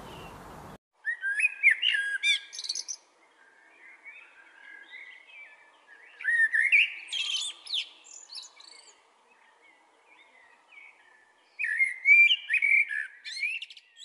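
Male common blackbird singing: three loud phrases about five seconds apart, each a string of gliding notes topped by high twitters, with softer notes between.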